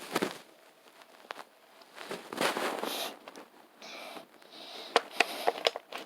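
Slime being played with: sticky crackling and small popping clicks, with a denser stretch of squishing about two seconds in and a cluster of sharper pops near the end.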